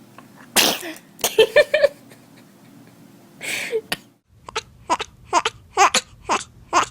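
A baby sneezing: a sharp burst under a second in, then a few short bursts right after it, and another sneeze about three and a half seconds in. Then comes a quick run of short bursts, about two or three a second.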